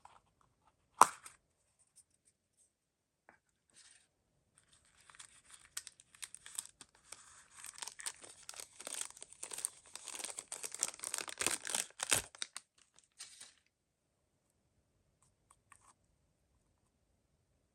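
A sharp tap about a second in, then mystery-toy packaging being torn open and crinkled by hand for several seconds, getting louder before stopping.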